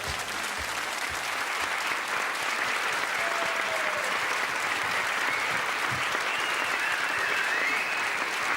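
Crowd applauding steadily, with a couple of faint cries rising and falling above it.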